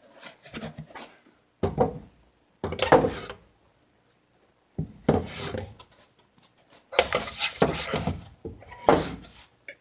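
Handling noises from things being moved about on a workbench: a series of irregular knocks, thunks and rubbing sounds with short pauses between them.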